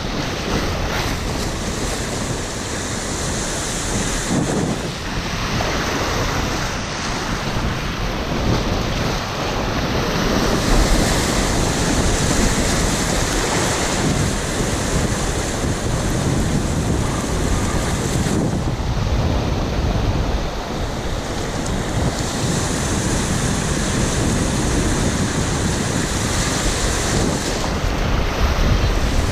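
River water rushing steadily, with wind buffeting the microphone.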